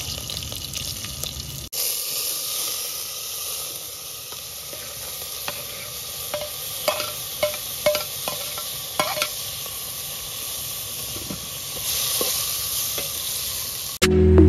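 Buffalo meat frying in hot oil in a metal pot, a steady sizzle, with a metal spoon stirring and clinking against the pot several times midway. Music comes in at the very end.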